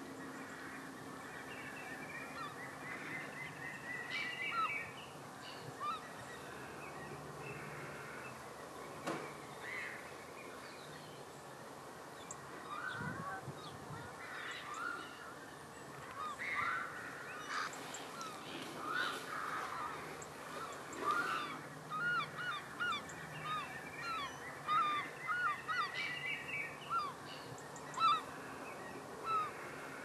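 A mixed flock of wild birds calling: many short calls overlap, coming thicker and in quick runs in the second half.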